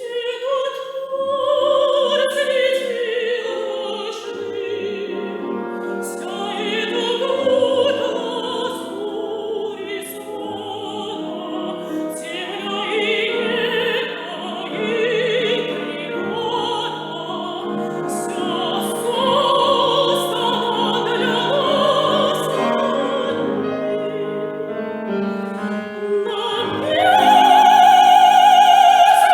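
Operatic soprano singing with piano accompaniment, phrases with wide vibrato, swelling into a loud, held high note near the end.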